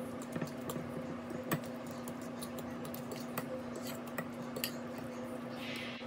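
Fork clicking and scraping against a bowl while mashing soft butter together with chopped herbs, in scattered irregular clinks over a steady low hum.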